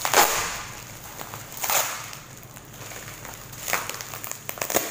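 Plastic bubble-wrap packaging crinkling and rustling as it is pulled open by hand, in four short crackly bursts, the loudest at the very start.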